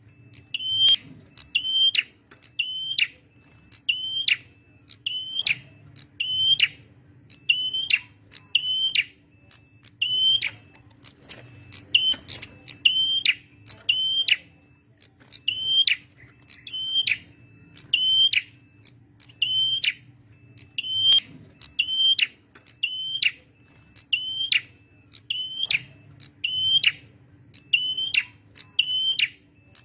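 Male prenjak merah, a small Indonesian warbler-type songbird, calling persistently: a sharp, high, quickly falling note repeated about once a second. A faint steady low hum sits underneath.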